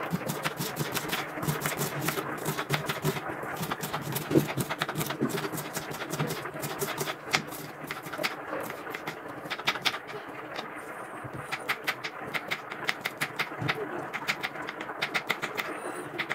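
Kitchen knife chopping onion on a wooden cutting board: a long run of quick, sharp taps of the blade striking the board, with brief pauses between bursts.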